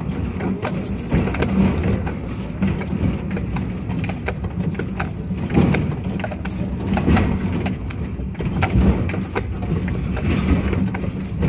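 Horse-drawn tramcar rolling along its rails, a steady rumble with scattered clicks and knocks from the wheels and running gear, and a heavy horse's hooves clip-clopping on the road surface as it walks.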